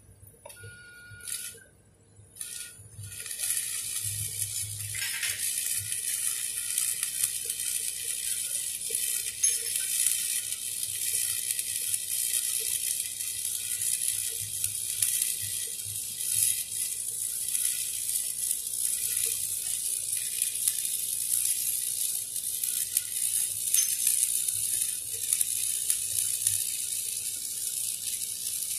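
Stick (shielded metal arc) welding on a 3-inch schedule 40 steel pipe-to-flange joint: the arc crackles and hisses steadily, starting about three seconds in after a few short clicks.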